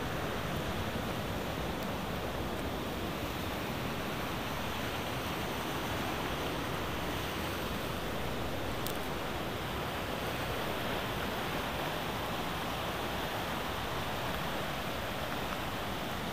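Rushing mountain river tumbling over boulders, a steady continuous rush.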